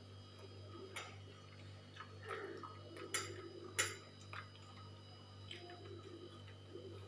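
A person eating: scattered small clicks and smacks of chewing, the two sharpest a little after three seconds in and just before four seconds, over a steady low hum.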